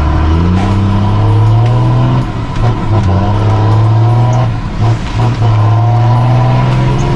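Mercedes-Benz 1620 truck's diesel engine with a straight-pipe exhaust, running loud under load and pulling up through the gears: its pitch climbs steadily and drops briefly twice at the gear changes.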